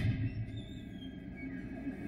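Echo of a test-range gunshot dying away over the first half second, followed by a steady low hum with a few faint thin high tones.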